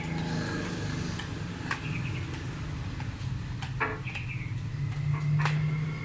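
A low, steady engine hum that swells about five seconds in, with scattered sharp clicks and a few short high chirps.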